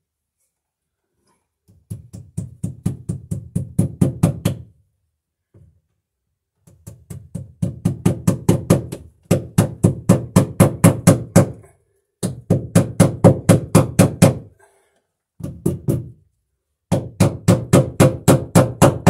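Hammer tapping cable staples into a wooden beam: six runs of quick taps, about five a second, each run starting light and growing harder.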